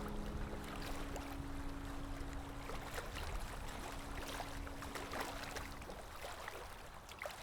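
Sea water lapping and splashing gently in an irregular patter of small splashes, under a held note of soft background music that fades out about six seconds in.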